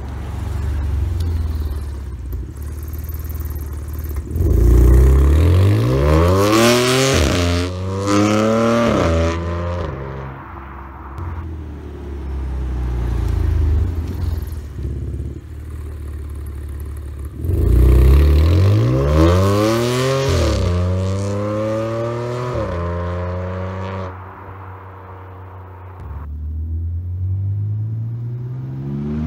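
2014 BMW F82 M4's S55 3.0-litre twin-turbo inline six, on Akrapovic downpipes, 200-cell HJS cats and a stainless exhaust, accelerating hard twice, the revs climbing through quick dual-clutch upshifts and then fading away. The first run has the exhaust flaps on automatic, opening at 4000 rpm; the second has them closed. A third run, with the flaps open, begins near the end.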